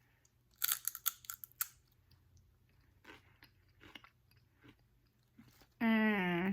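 Crunchy Quest spicy sweet chili chips being bitten and chewed: a quick run of loud crunches in the first couple of seconds, then softer, scattered chewing. Near the end, a short voiced 'mmm' hum, falling in pitch.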